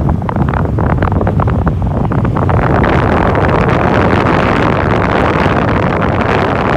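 Wind buffeting the microphone: a loud, low rumbling rush with crackles, growing into a denser hiss about two and a half seconds in.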